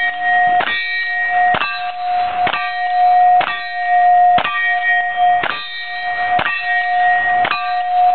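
A lever-action rifle fired at steel targets, about one shot a second, eight in all. Each shot is followed by the ringing clang of a struck steel plate, which carries on until the next shot.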